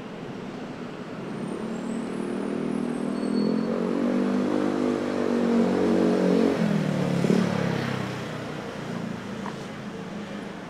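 A motor vehicle approaching and passing close by on the street: its engine hum grows louder over several seconds, then drops in pitch as it passes about seven seconds in and fades away, over steady traffic and street noise.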